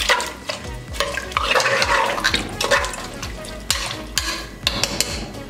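A bare hand mixing raw mutton chops, sliced onions, tomatoes and spices with water in an aluminium pressure cooker: irregular wet squelching and sloshing, with scattered short clicks.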